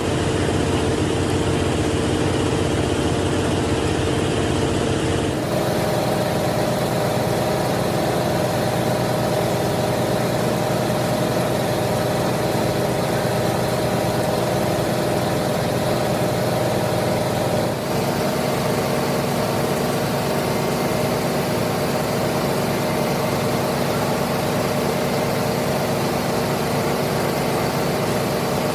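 Steady hum of a running workshop machine. It holds several tones and changes suddenly about five seconds in and again about eighteen seconds in.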